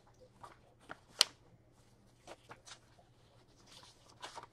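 A few scattered light clicks and taps, with one sharper click about a second in, over a faint steady hum.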